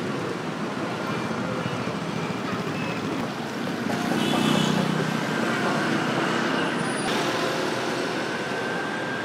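Street traffic: a continuous wash of engine and road noise, with one vehicle passing louder about four to five seconds in and a thin steady whine holding from about halfway.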